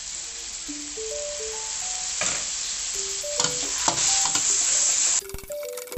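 Pork sizzling in a hot wok as fish sauce is added and it is stir-fried with a metal spatula, with a few scrapes of the spatula against the wok. The sizzle cuts off abruptly near the end. Background music with a simple melody of short notes plays throughout.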